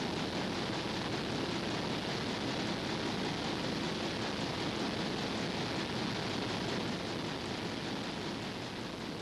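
Steady hiss with no distinct sounds, dropping slightly in level near the end.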